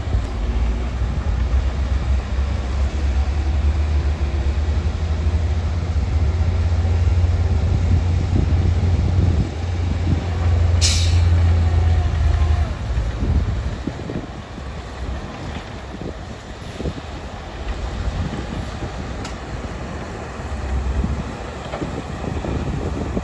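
Heavy diesel earthmoving machinery running with a deep rumble that eases off a little past the middle. About halfway through, a short sharp hiss of air cuts in.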